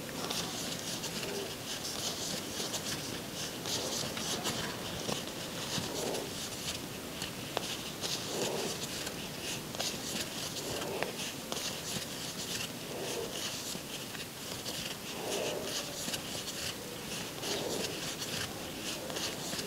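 Crochet hook and yarn rustling and scratching as single crochet stitches are worked close to a clip-on microphone, with a soft swish about every two seconds as each stitch is pulled through.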